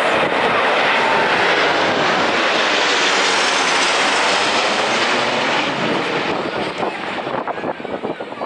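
Military aircraft flying past overhead: loud, even engine noise that holds through the first five seconds or so, then fades away over the last three.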